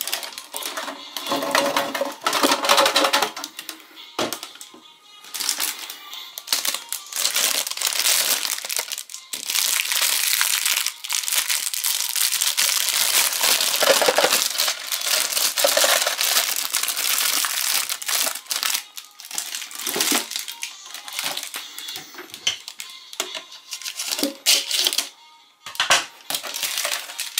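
Clear cellophane wrapping crinkling and rustling as hands pull it off a tin lunch box, over background music.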